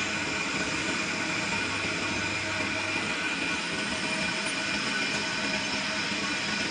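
Large metal lathe running steadily, turning a stainless steel pipe: an even hum with a constant high whine from the spindle drive and gearing.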